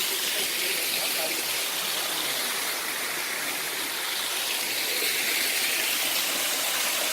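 Water rushing steadily at a small waterfall.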